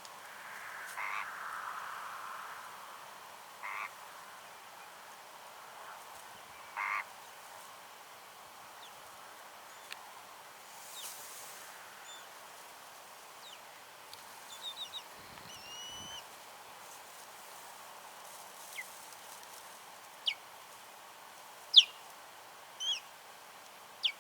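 Birds calling now and then over a faint steady hiss: a few short calls in the first seven seconds, then sharp, high whistled calls in the second half, the loudest near the end.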